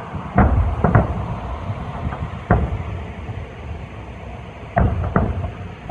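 Aerial firework shells bursting in a display: a series of booms, two about half a second apart near the start, one about two and a half seconds in, and two more close together near the end.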